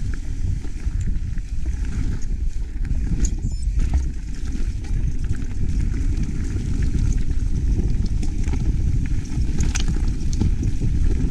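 Wind buffeting the microphone and the rumble of a mountain bike rolling fast downhill over a dirt trail, with scattered clicks and rattles, sharpest a few seconds in and again near the end.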